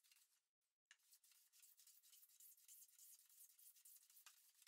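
Hand plane taking shavings off a wooden lid panel: faint, hissing strokes of the blade across the grain, with a short pause just before a second in.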